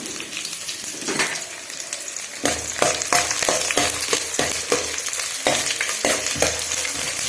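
Garlic and peanuts frying in hot oil for a tempering, with a steady sizzle. From about two and a half seconds in, a spatula stirs and scrapes against the pan in quick repeated strokes.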